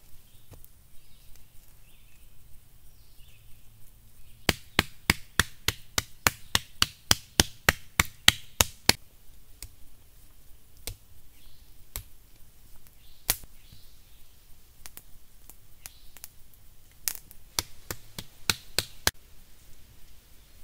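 Hard knocks of a hand-held stone striking, about four quick knocks a second for some four seconds, then scattered single knocks and a short run near the end.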